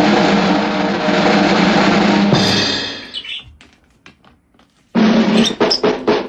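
A steady loud drone with a low hum fades out about two and a half seconds in. After a short quiet gap, a drum kit starts, played in rapid sharp hits.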